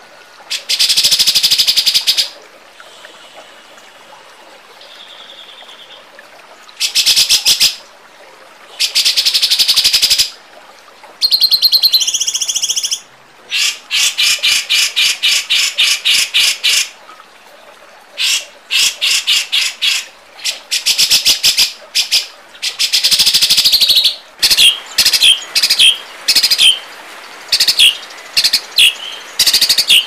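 Songbird song played as a training track: loud bursts of rapid, evenly repeated high notes, the sharp 'tembakan' phrases, each lasting one to three seconds with short pauses between them. In the last few seconds the phrases turn short and come in quick succession.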